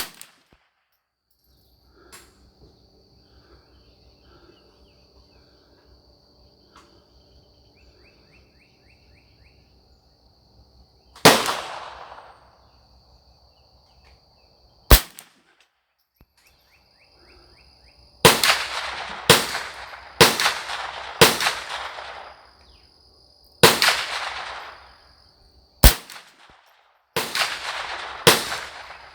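Mossberg 152 semi-automatic .22LR rifle firing about ten sharp shots: single shots with long pauses between them, then a quicker string about a second apart in the second half. Between shots a faint, steady, high insect drone.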